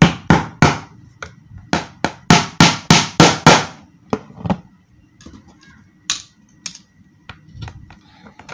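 Pliers used as a hammer, knocking a plastic conduit clip's nail into a wooden board: about ten sharp strikes at roughly three a second, stopping after about three and a half seconds, then a few faint taps and handling noises.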